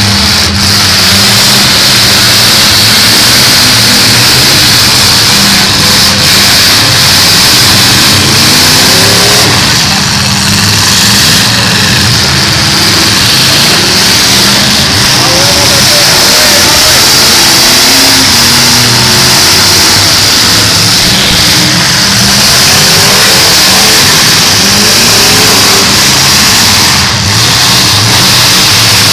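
Several demolition derby cars' engines running and revving at once, their overlapping pitches rising and falling continuously and loudly.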